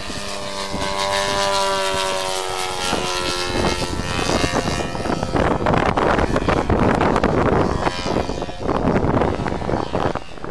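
Engine and propeller of a radio-controlled scale Christen Eagle biplane in flight, a steady droning note at first, then a louder, rougher, noisier sound through the second half.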